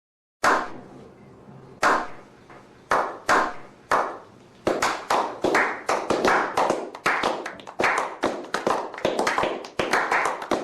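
Hand claps: a few scattered claps, then a quick run of about four claps a second from around five seconds in, each with a short echo.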